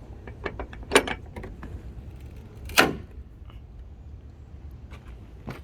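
Scattered small metallic clicks and taps from handling a Jeep Wrangler JK's aluminium hood latch, with two louder clacks about a second in and just before the three-second mark.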